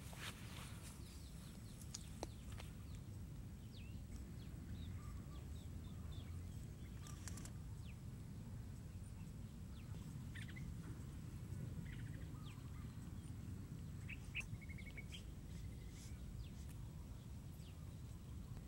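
Scattered short bird chirps, with a brief trill about fourteen seconds in, over a steady low background rumble.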